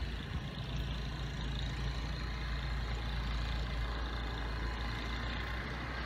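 Nor'easter wind blowing steadily, rumbling low on the microphone.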